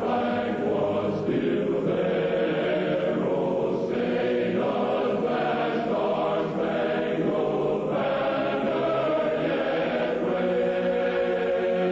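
A choir singing slow, sustained chords, with a dull, muffled tone.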